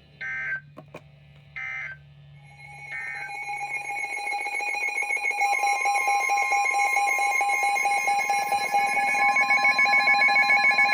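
Emergency Alert System broadcast tones: three short squawking bursts of SAME digital data, about a second apart, then the steady two-tone EAS attention signal, which swells in level over a few seconds.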